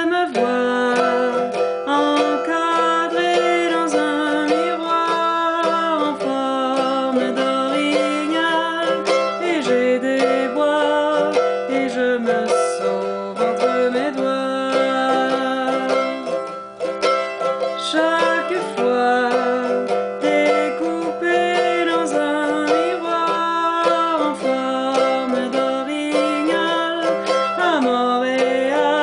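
A woman sings a slow French folk melody with long held notes while strumming a mandolin in quick, steady strokes.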